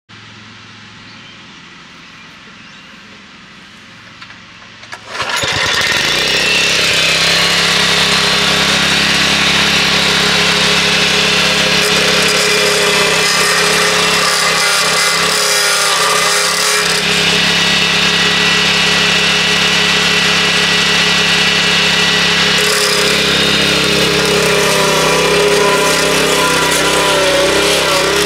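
Small petrol engine of a wheeled lawn edger starting about five seconds in, then running steadily at working speed.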